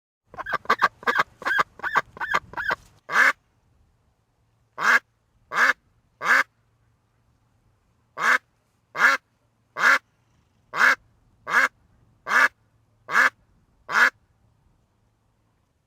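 A duck quacking: a fast run of about ten short quacks, then a dozen louder single quacks under a second apart, broken by a couple of short pauses.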